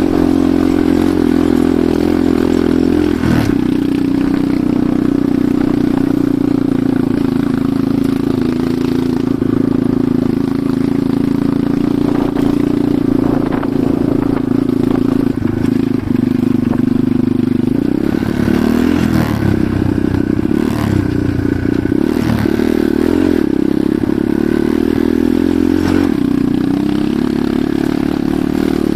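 Enduro motorcycle engine running while riding, a steady engine note with a shift about three seconds in and the revs rising and falling through the second half.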